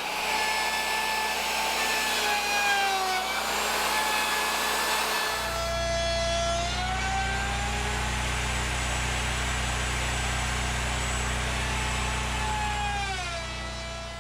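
Portable band sawmill running and cutting through a log: a steady high whine that rises in pitch, sags, rises again and drops near the end, over the rasp of the blade in the wood.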